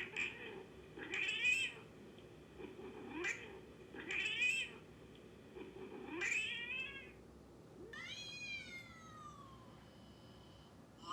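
Recorded angry cat noises played back: a string of short yowls and hissing calls, then a longer yowl near the end that falls in pitch.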